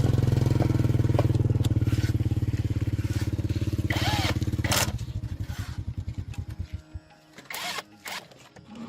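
Rebuilt D12 single-cylinder diesel engine running at a steady, fast beat, then shut off about five seconds in, its beats slowing and fading as it coasts to a stop.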